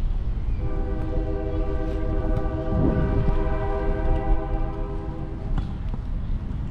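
Train horn sounding one long steady blast of about five seconds, a chord of several tones, starting about half a second in.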